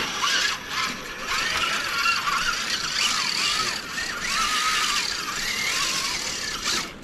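RC scale crawler truck's electric motor and geared drivetrain whining, the pitch rising and falling as the throttle is worked, with a gritty rasp above it.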